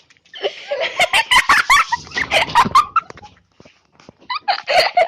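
People laughing and giggling in two spells, the second beginning about four seconds in.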